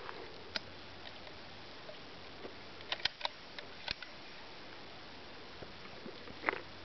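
Scattered light clicks and knocks over a steady faint hiss, with a quick cluster of them about three seconds in and another click near the end.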